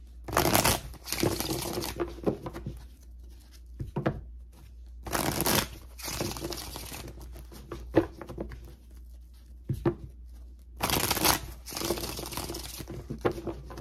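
Deck of tarot cards shuffled by hand: several bursts of papery card noise with short pauses between, the strongest starting about five and about eleven seconds in.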